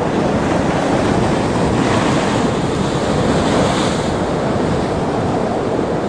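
Heavy storm surf breaking and churning over rocks: a loud, steady rush of water mixed with wind, the hiss swelling about two to four seconds in.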